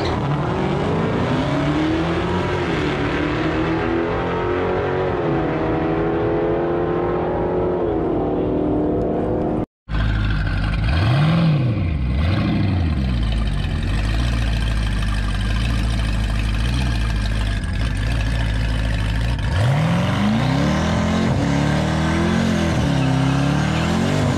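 A drag car's engine accelerating hard down the strip, its pitch climbing and dropping at each gear change. After a brief cut, a Cadillac CTS-V coupe's supercharged V8 rumbles at the start line, with two quick throttle blips shortly after and more revving near the end.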